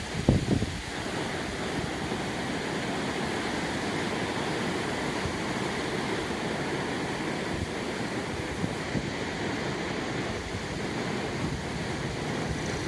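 Steady sea surf washing onto the beach, mixed with wind buffeting the microphone, and a brief knock in the first second.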